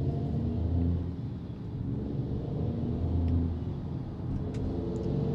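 Low, steady road rumble inside a Tesla electric car's cabin as it drives away from a stoplight, with a few faint ticks in the second half.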